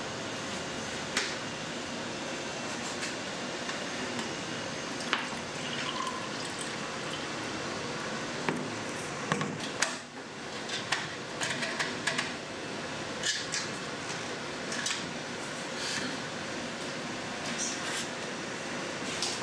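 A plastic pitcher of tea being handled: sharp clicks and knocks of its plastic lid and body, more frequent in the second half, with liquid sloshing and pouring over a steady background hiss.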